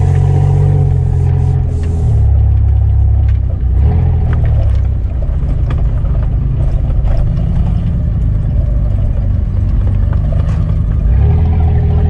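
Off-road 4x4 engines running under throttle over rough ground. The engine note shifts up and down, with scattered knocks and rattles from the vehicles bouncing on the track.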